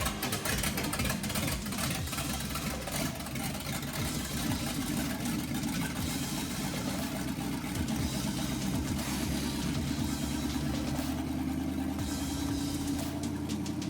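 Small-block Chevy V8 in a 1963 Chevy C10 running steadily at idle while base timing is set with the vacuum advance plugged off; its note creeps up slightly late on.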